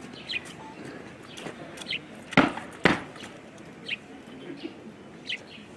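A bird chirping over and over with short, high, falling notes, and two loud sharp thumps about half a second apart midway through.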